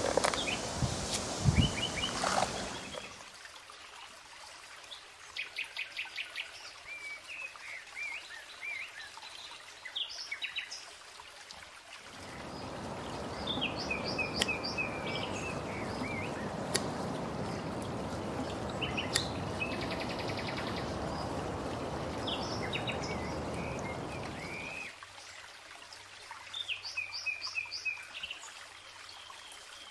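Small birds chirping and singing in short repeated phrases, with a few sharp knocks in the first seconds and a steady rushing noise for about thirteen seconds in the middle.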